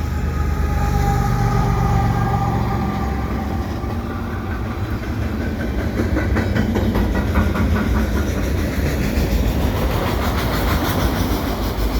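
A GE ES44AC diesel locomotive working as a mid-train DPU passes close by, its engine droning with a whine that drops slightly in pitch as it goes. Freight cars then roll past with wheels clicking over the rail joints, the rolling noise growing brighter near the end.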